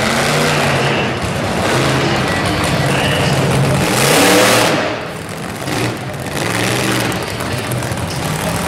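Monster truck engine revving hard, its pitch rising and falling as the throttle is worked, with a loud blast of noise about four seconds in as the truck drives onto a row of junk cars.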